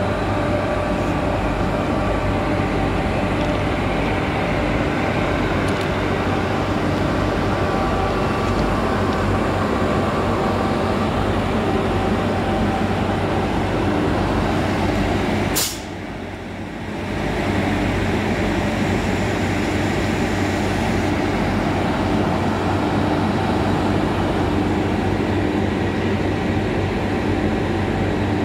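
WAG-7 electric locomotive standing with its auxiliary machinery running: a steady drone of blowers with a hum and several steady whining tones. About sixteen seconds in, a sharp click is followed by a drop in the sound for about two seconds before the drone comes back.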